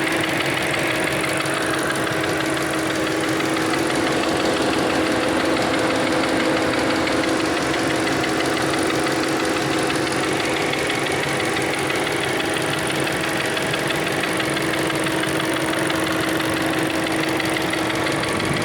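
1.4 TSI turbocharged four-cylinder petrol engine idling steadily, with a fast, even ticking rattle over a steady whining tone. This is the abnormal noise being checked on it.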